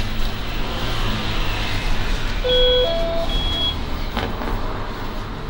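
A short two-note electronic beep, a low tone stepping up to a slightly higher one, about halfway through, over a steady low rumble.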